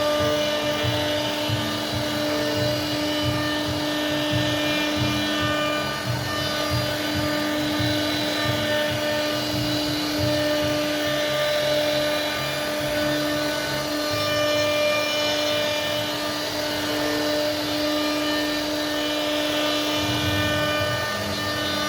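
CNC router spindle running with a steady high whine while the bit carves hardwood, over an uneven lower rumble from the cut that rises and falls.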